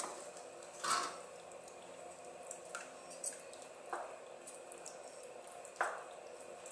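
Wooden spatula stirring thick tomato and ground-turkey sauce in a stainless steel sauté pan: quiet wet squelching, with a few short louder knocks or slaps of the spatula, one about a second in, others near four and six seconds.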